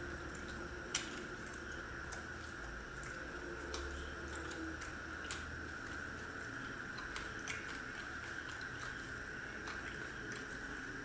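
Eating by hand: soft chewing and mouth sounds while ghee-fried paratha with chili chicken is eaten, with short sharp clicks every second or two, over a steady background hum.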